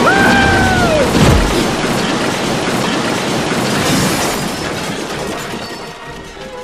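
Loud rushing, rumbling film sound effects, opening with a brief whistle that falls in pitch and a deep downward sweep, then a dense rush that fades near the end.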